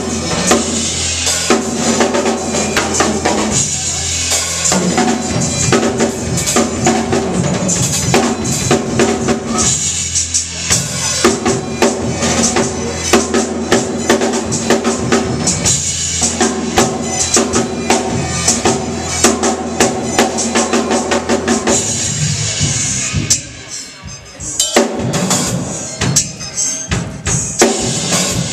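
Drum kit played live, with kick drum, snare and cymbals beating fast over music with steady held tones. Near the end the drumming drops away for about two seconds, then comes back with scattered hits.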